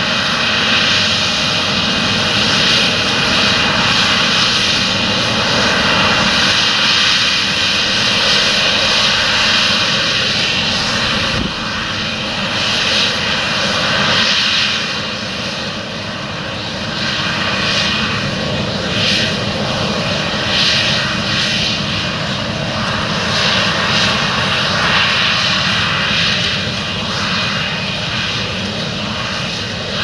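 Challenger MT775E tractor's diesel engine running steadily under load, pulling a ten-furrow Gregoire Besson plough through stubble, with a dense rushing noise over it.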